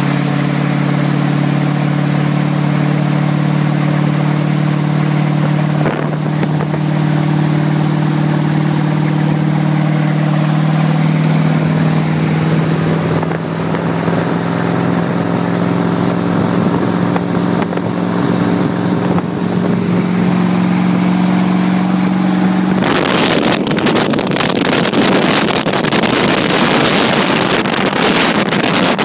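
PCM 350 cubic inch V-8 inboard engine of a 1965 Century Sabre runabout running steadily under way, its pitch rising slightly about halfway through. For the last several seconds a loud rushing noise of wind and water covers the engine.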